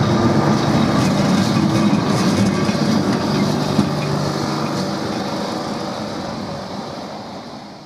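Lisbon heritage electric tram running on street rails, with wheel-on-rail noise, a low steady motor hum and a few clicks. The sound fades out over the last few seconds.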